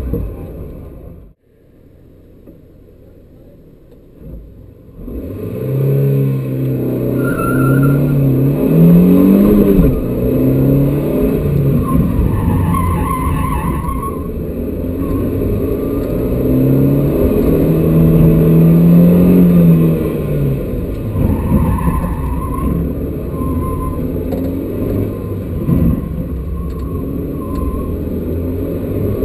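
Renault Twingo Gordini slalom car heard from inside the cabin, its engine revving up and falling back again and again through the gears, with tyres squealing briefly several times in the turns. About a second in the sound drops abruptly to a low steady hum for a few seconds before the engine comes back in.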